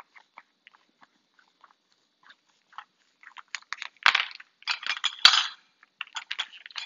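Kitchen scissors cutting into a plastic pouch of chicken, with the plastic crinkling and crackling. Sparse at first, it gets busy about halfway through, with two sharp snaps.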